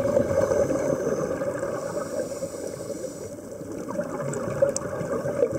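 Ambient sound recorded underwater: a steady, muffled rumble of water noise.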